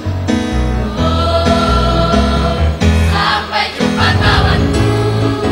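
Mixed choir of girls' and boys' voices singing in harmony, held chords changing about once a second; the voices grow brighter and louder about three seconds in.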